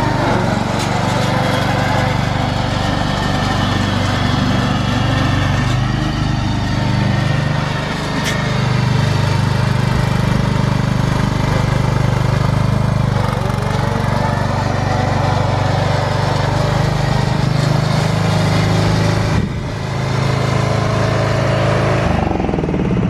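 Countax C500H ride-on lawn tractor engine running steadily as the tractor is driven across the lawn, with two brief dips in level.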